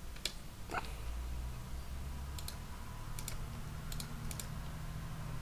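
Light, irregular clicks of a computer keyboard and mouse, about half a dozen sharp ticks over a low steady hum.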